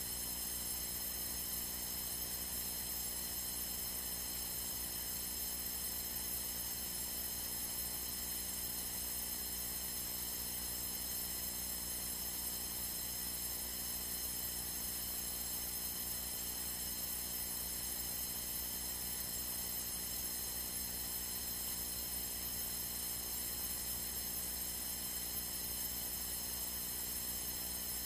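Steady electrical hum and hiss with a set of faint high-pitched whine tones, unchanging throughout, typical of line noise on an aircraft's radio and intercom audio feed.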